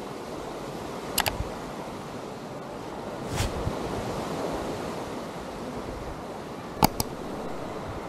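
Surf washing on a sandy beach as a steady rush. A few sharp clicks cut through it: two close together about a second in, one in the middle, and a louder pair near the end.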